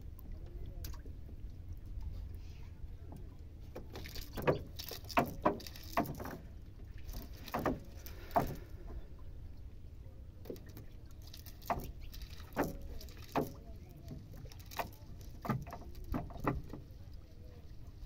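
Irregular sharp taps and rustles of a cast net being handled and small fish picked out of it onto a plastic sheet in a wooden boat. The taps come in two spells, in the middle and near the end, over a steady low rumble.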